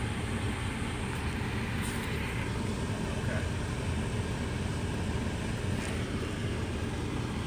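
Steady low rumble of a car heard from inside the cabin while it drives, engine and road noise, with a couple of faint ticks.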